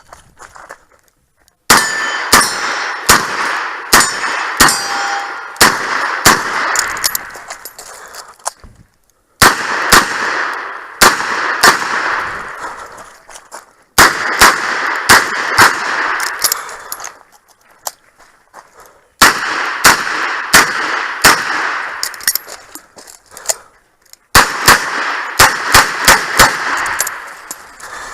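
Strings of rapid shots from a Smith & Wesson 929 9mm revolver, each burst ringing out, mixed with the clang of struck steel targets. The shooting comes in five strings broken by short pauses of about a second.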